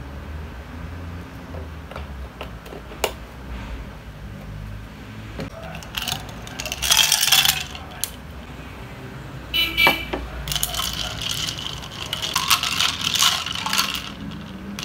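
Ice cubes tipped from a glass into a glass jar of milk, clattering and clinking against the glass, with one clear ringing glass clink. Then a long metal spoon stirs the ice, with a run of rapid clinks against the glass.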